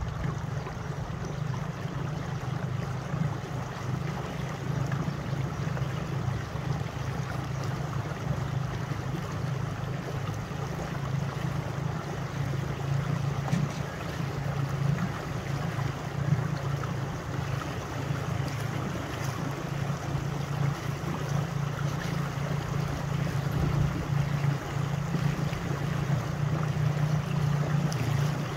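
Steady wind rushing over the microphone, with the noise of wind-ruffled water, on a breezy lakeshore.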